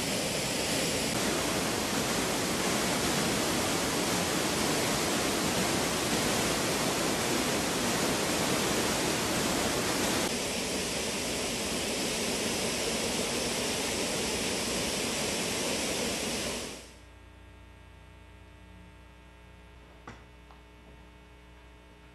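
Steady rush of a waterfall's falling water, which changes slightly in character about ten seconds in. It cuts off suddenly a few seconds before the end, leaving only a faint low hum.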